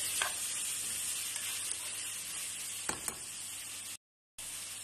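Onion, garlic, ginger and tomatoes sizzling steadily in hot oil in a frying pan as they are stirred, with a couple of sharp clicks of the utensil against the pan. The sound cuts out briefly near the end.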